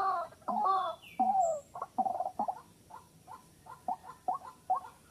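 White-breasted waterhen calling: three long, loud notes, then a run of shorter, fainter repeated notes at about two a second. A faint high whistle from another bird sounds near the start.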